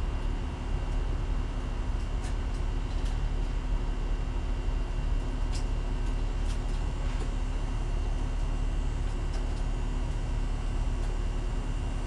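Steady low rumble of background noise, with a few faint, sharp clicks scattered through it.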